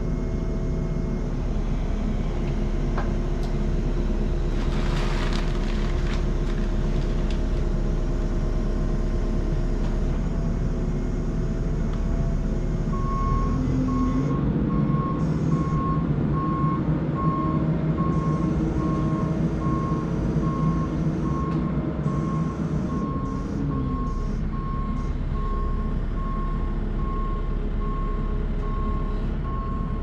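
Loader engine running steadily as it lifts and carries an engine on chains, working harder for several seconds in the middle. From about thirteen seconds in, its reversing alarm beeps steadily as the machine backs away.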